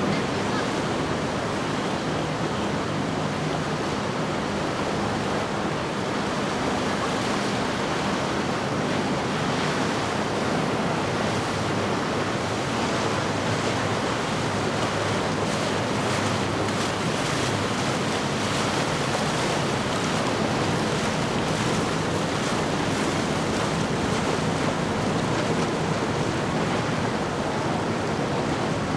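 Steady wind rushing over the microphone and the wash of open water, with a faint low engine hum from a passing motor boat underneath.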